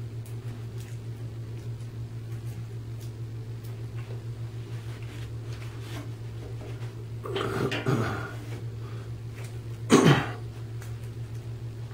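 A steady low electrical hum, with a person clearing their throat past halfway and giving one short, loud cough near the end.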